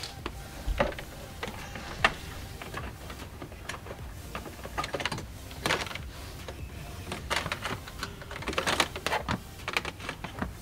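Irregular light clicks and rustles of a power cable being fed by hand through plastic dashboard trim.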